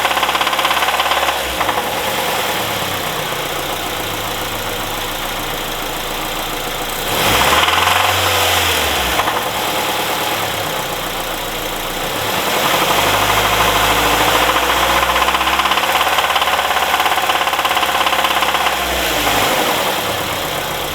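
Nissan KA24 2.4-litre inline-four engine running warm with a knock, revved twice: briefly about seven seconds in, then held for several seconds from about twelve seconds in. The owner puts the knock down to worn connecting-rod bearings after oil starvation from a bent oil pan.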